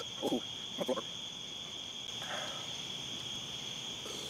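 Steady, high-pitched chorus of night-singing insects, a continuous trill. A couple of short, louder sounds come in the first second.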